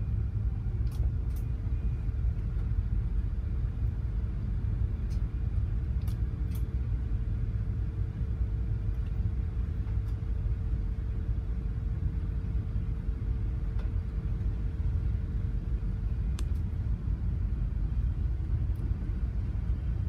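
Steady low rumble of a container ship under way, heard inside the wheelhouse, with a thin steady hum above it and a few faint ticks.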